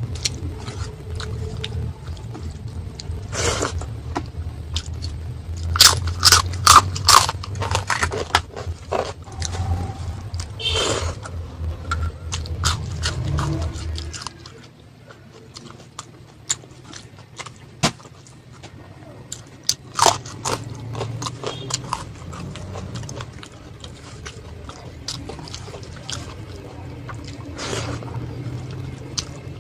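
Close-up eating sounds: chewing and biting with sharp crunches of crisp fried food, loudest in a quick run of crunches about six seconds in.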